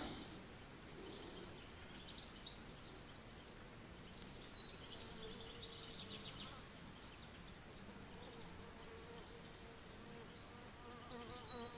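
Faint buzzing of a flying insect: a steady drone that comes in about four seconds in and wavers in pitch near the end. A few faint bird chirps come and go.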